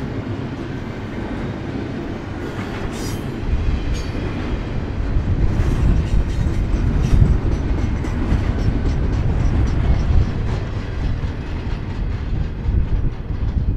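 Double-stack intermodal freight train's well cars rolling past: a steady rumble of steel wheels on the rails, growing louder about three and a half seconds in.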